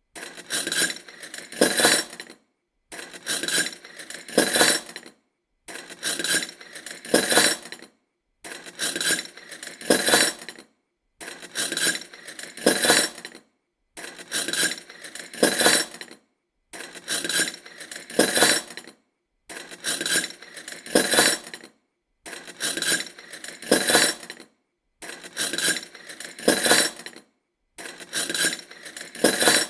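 Metal spoon and fork clinking, in bursts of several quick clinks that each end in the loudest ones, repeated about every three seconds with short silences between.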